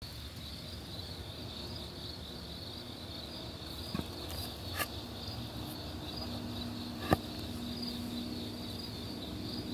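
Night insects chirping in a steady, high, pulsing chorus. A few short sharp clicks cut through it, the loudest about seven seconds in.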